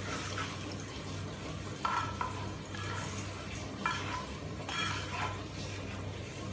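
A cooking utensil stirring carrots into a pot of menudo in tomato sauce, scraping and clinking against the pot four times. A steady low hum runs underneath.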